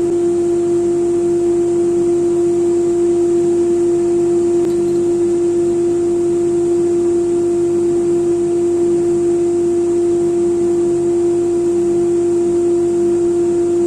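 Electric thickness planer running idle with no board feeding, a loud steady hum on one pitch.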